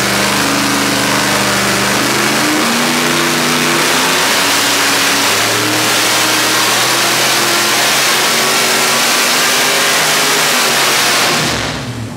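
Naturally aspirated 427-cubic-inch LS V8 running loud and steady under load on an engine dyno. Near the end it drops away sharply as it comes off the pull.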